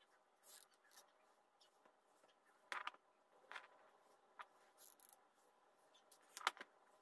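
Faint, scattered light taps, clicks and brief rustles of hands handling craft materials (flowers, yarn, cardboard, a hot-glue gun) on a wooden table, with the loudest click near the end, over a faint steady hum.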